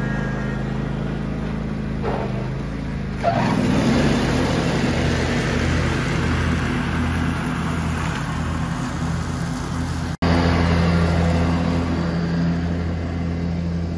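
John Deere riding lawn mower's engine running steadily as the mower drives. The sound breaks off sharply about ten seconds in and comes back louder.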